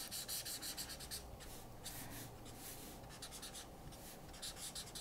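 Broad tip of a Prismacolor marker dabbing and stroking on paper: a faint run of many short strokes in quick succession, laying in a tree's leaves.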